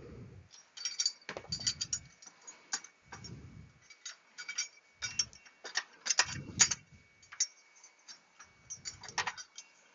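Irregular metallic clicks and clinks of tools and loosened bolts being handled in a car's engine bay, with a few short dull knocks.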